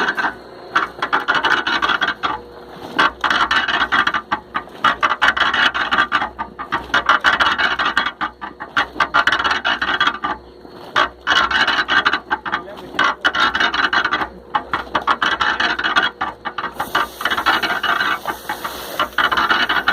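Washing machine running its wash cycle: a rough rubbing, rasping swish that keeps breaking off and starting again, over a faint steady motor hum.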